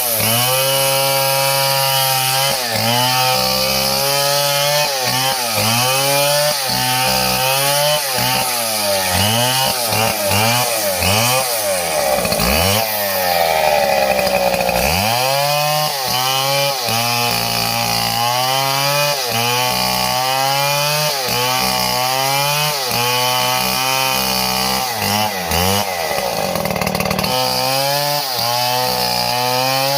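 Small chainsaw cutting wood: the engine's pitch keeps dropping as the chain bites and rising again as it revs, about every second or two, with one longer drop near the middle.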